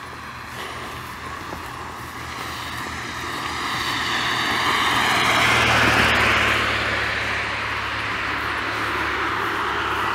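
An aircraft passing overhead: its engine noise swells, is loudest about six seconds in, then fades, its pitch sliding slightly down as it goes by.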